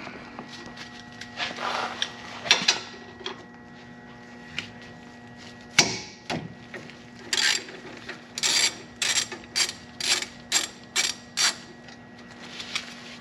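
Hand ratchet wrench clicking through a run of strokes, about two a second, in the second half. A few sharp metal knocks and clinks come before it.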